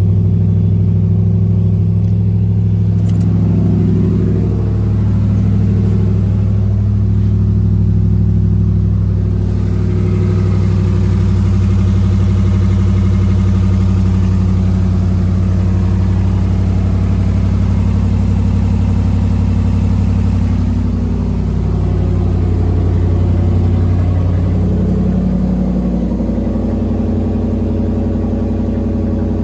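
2010 Dodge Ram 1500's 4.7-litre V8 idling steadily.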